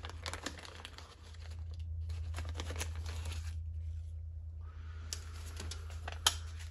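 Plastic parts bag from a carburetor rebuild kit crinkling and rustling in the hands as it is opened and gaskets and a diaphragm are pulled out, in three bouts with a short pause in the middle and a sharp click near the end. A steady low hum runs underneath.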